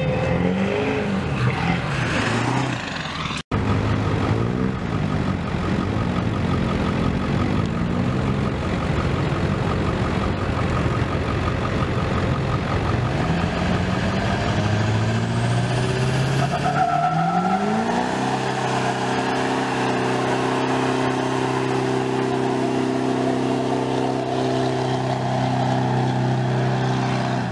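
Diesel pickup trucks revving and pulling away hard, the engine note climbing in several rising pulls, with a brief break about three and a half seconds in. From about eighteen seconds in, one diesel engine is held at steady high revs while spinning its rear tyres in a burnout.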